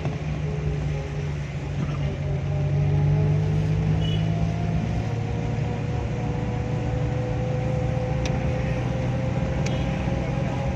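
Vehicle engine running and tyres on a wet road, heard from inside the moving vehicle. The low engine tone drops a little about halfway through. Two faint clicks come near the end.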